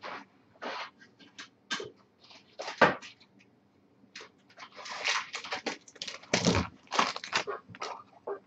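Someone rummaging for a one-touch card holder: irregular clicks, knocks and crinkling of plastic, sparse at first and busier in the second half.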